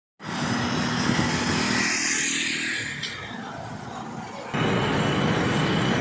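City road traffic: small engines and cars running, with the hum of the bajaj auto-rickshaws just ahead. About four and a half seconds in, the sound cuts abruptly to a louder, steadier noise.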